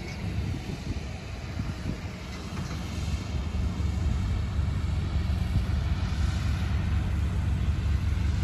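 A vehicle engine's low, steady rumble, getting louder about three seconds in.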